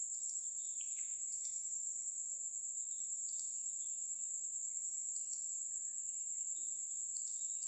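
A steady high-pitched whine or trill running under quiet room tone, with a few faint short clicks.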